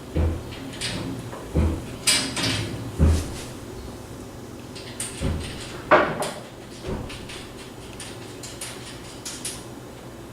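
Tree stand rail and platform parts being handled and fitted together: a series of dull thumps and knocks, the sharpest about six seconds in, then lighter clicks as bolts are fed through the holes.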